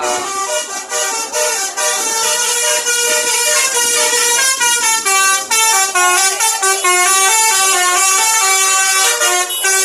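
A bus's telolet horn, a multi-trumpet musical air horn, playing a fast melody of short stepped notes, about three a second, with no pause.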